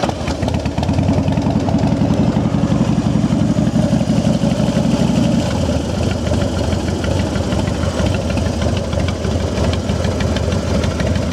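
Harley-Davidson Twin Cam 88 carbureted V-twin just fired up, running at a raised idle. About halfway through it settles to a lower idle with the lumpy, uneven Harley lope in the exhaust.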